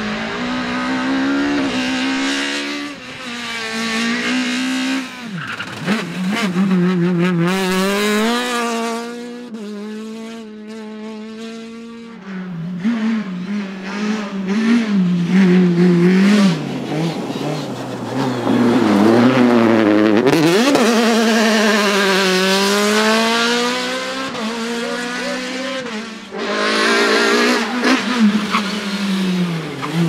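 Peugeot 306 Maxi Kit Car's high-revving two-litre four-cylinder rally engine driven hard on a special stage over several passes. The revs climb and fall sharply again and again with quick gear changes and lifts off the throttle.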